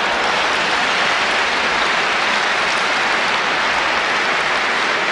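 Large audience applauding and laughing at a joke, a steady dense clapping throughout.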